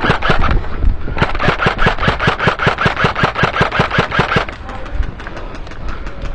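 Airsoft rifle firing on full auto: a rapid string of sharp shots ending about half a second in, then a longer burst of about three seconds as covering fire, with fainter shots continuing afterwards.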